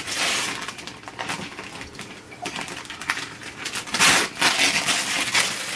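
Paper or packaging crinkling and ripping in a run of rustles and short snaps, growing loudest about four seconds in.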